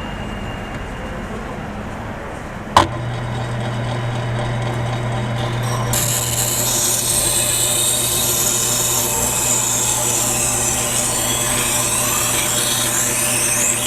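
A powered knife-sharpening machine: a click about three seconds in, then its motor runs with a steady hum. From about six seconds in, a steel knife blade is ground against the abrasive with a continuous hissing, rasping grind whose pitch sweeps up and down as the blade is drawn across.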